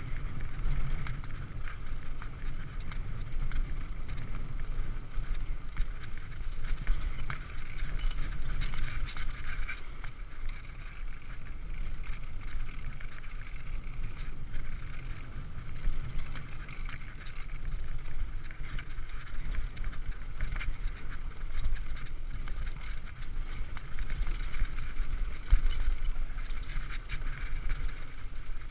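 Mountain bike rolling along a dirt singletrack, with steady tyre noise and short rattles of the bike over bumps. Wind buffets the microphone.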